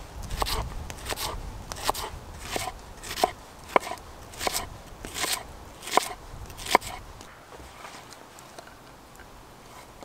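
Knife slicing a red onion on a wooden chopping board cut from a log: about ten crisp, even cuts, roughly one and a half a second, stopping about seven seconds in.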